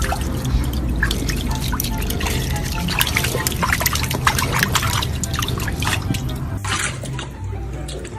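Water dripping and splashing in quick, irregular clicks, thinning out near the end.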